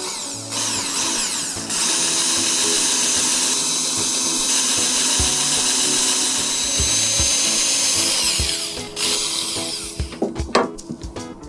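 A power tool's motor spins up with a rising whine, runs steadily for about seven seconds, then winds down. Background music plays throughout, and a few light knocks follow near the end.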